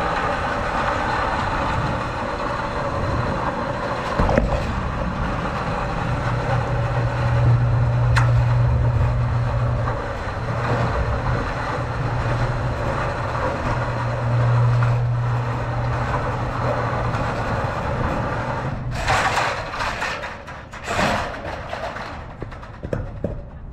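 Seamless gutter machine running, roll-forming a long length of metal gutter: steady mechanical clatter with a low motor hum that comes in twice for several seconds. Two louder scraping rushes come near the end, and then the noise drops away.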